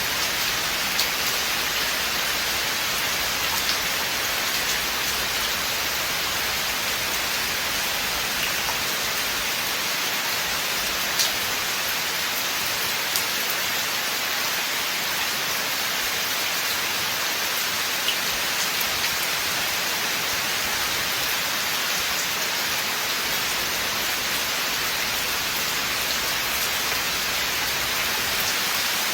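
Steady rain falling through a forest, an even hiss with a few louder single drops ticking close by.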